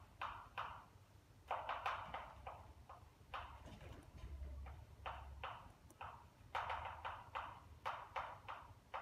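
Chalk tapping and scraping on a blackboard as equations are written: quick, irregular strokes in bursts with short pauses between them.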